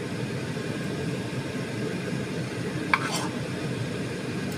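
Steady low background hum with no distinct tone, and a single short clink about three seconds in.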